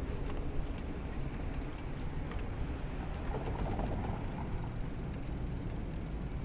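Bicycle riding heard through a GoPro: a steady low rumble of wind and rolling tyres, with light irregular ticking from the bike.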